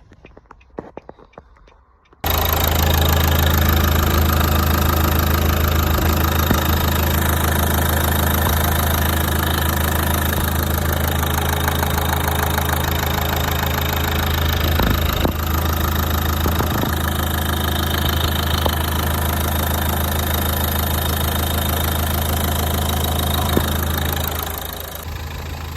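Vehicle engine idling steadily. It comes in suddenly about two seconds in after a few quiet seconds and eases off slightly near the end.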